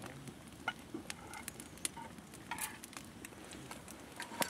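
Faint, scattered small clicks and rustles of handling, with a sharper click near the end.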